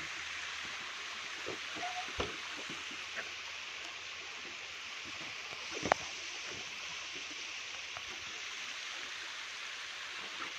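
Swollen, muddy river rushing steadily below, heard as a continuous hiss of water. A few sharp knocks break through it, the loudest about six seconds in.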